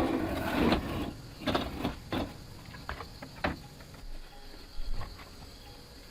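Irregular knocks and clicks from hard objects being handled and set down, busy for about the first second and then scattered.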